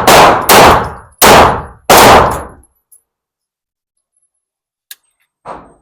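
Pistol fired in a rapid string, four shots about two-thirds of a second apart, each with a short ringing tail, then a faint click near the end.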